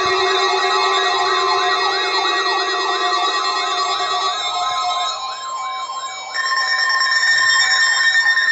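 Several NOAA Weather Radio receivers sound their alarms together for a practice tornado warning. A siren-like warbling tone rises and falls about three times a second over several steady alert tones. Some of the steady tones stop about four seconds in, and a higher steady tone comes in about six seconds in.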